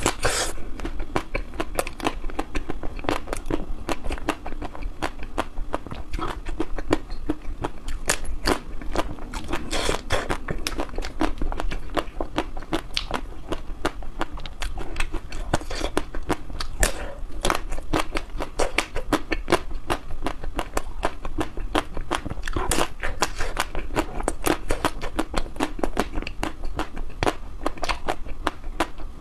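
Close-miked biting and chewing of frozen ice cream bars, the crisp chocolate coating cracking and crunching in a dense run of small sharp clicks.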